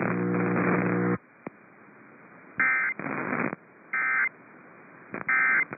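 Emergency Alert System end-of-message data bursts: three short, raspy digital tone bursts about a second and a quarter apart, marking the end of the severe thunderstorm warning broadcast. Before them, a steady hum cuts off about a second in.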